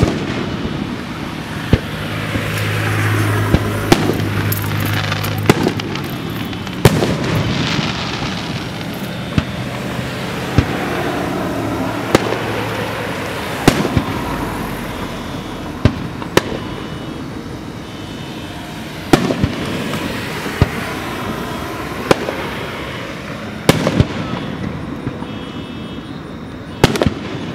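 Aerial fireworks shells bursting: sharp bangs every second or two, a handful of them much louder, over a continuous noisy wash.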